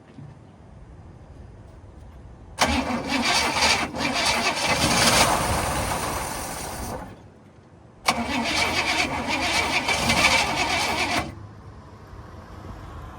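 Chevy 327 small-block V8 started twice. Each time it starts suddenly, runs briefly for about three to four seconds, then dies, the first run tailing off before it stops. It is an engine that runs, but only in short bursts.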